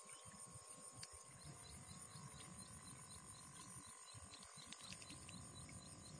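Near silence: faint outdoor ambience with a low rumble and a faint, regular high chirping, a few chirps a second.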